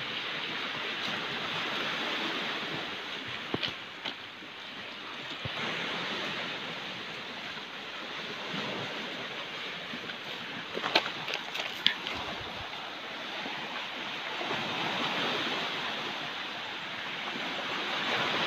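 Sea waves washing onto a stony beach, swelling and easing, with wind on the microphone. A few sharp clicks sound over it, around a third of the way in and twice more past the middle.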